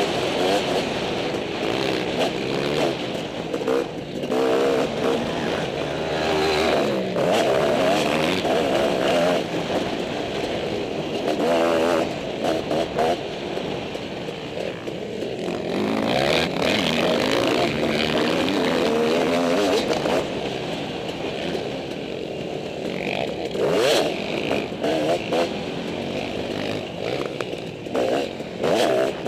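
Motocross dirt bike engine revving up and down over and over as the rider accelerates, shifts and backs off around the track, heard from the rider's helmet, with short sharp knocks scattered through.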